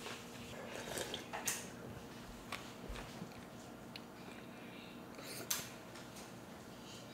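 Faint eating sounds: broth sipped straight from a bowl, then a strand of chewy noodle slurped up, with a few short soft clicks and a slurp about five and a half seconds in.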